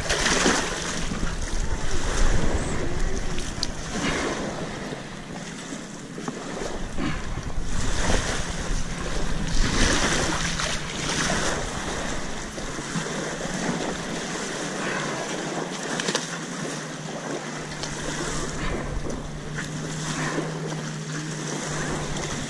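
Wind gusting across the microphone over small waves lapping at a lake shore, with the rushing coming in surges every couple of seconds in the first half.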